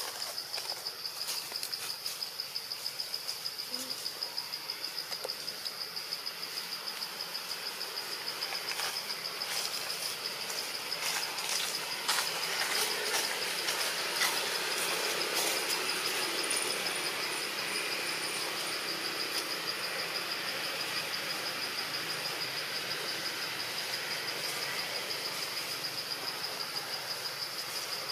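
Insect chorus: a steady, fast-pulsing high buzz, with scattered short crackles and a stretch of louder rustling hiss in the middle.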